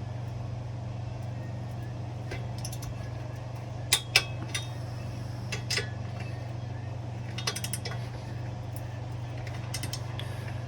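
Metal hand tools clicking and clinking as header bolts are torqued down with a torque wrench to 40 foot-pounds, with two sharp clicks about four seconds in and a few lighter ones later, over a steady low hum.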